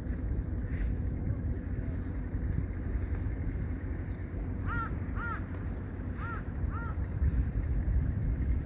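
Strong wind blowing on the microphone as a steady low rumble. About five seconds in, a bird gives four short calls in two pairs.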